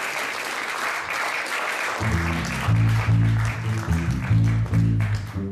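Audience applause, then about two seconds in an electric bass guitar starts a repeating riff of low notes while the applause carries on underneath and fades.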